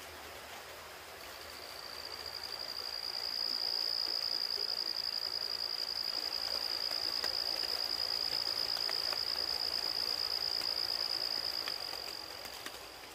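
An insect trilling in one high, steady, fast-pulsed note that swells in over the first few seconds and fades near the end. Underneath is the steady wash of a creek in light rain.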